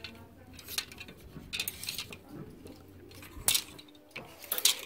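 Clear plastic clothes hangers clicking and clacking against each other and along a metal clothes rail as dresses are pushed aside one at a time. The clicks come irregularly, the loudest about three and a half seconds in and a cluster just before the end.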